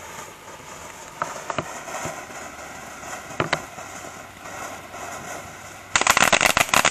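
Black Cat Monkeys in a Barrel fountain firework spraying with a steady hiss and a few scattered pops. About six seconds in it suddenly breaks into dense, loud crackling.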